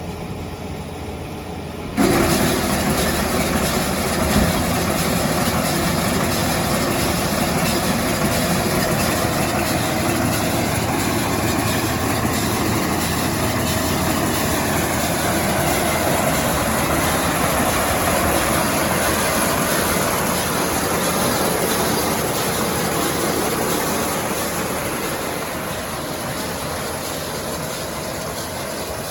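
Kuhn VB2160 round baler running off a tractor, with the engine and baler mechanism making a steady mechanical noise. The sound jumps up sharply about two seconds in and eases off a little near the end.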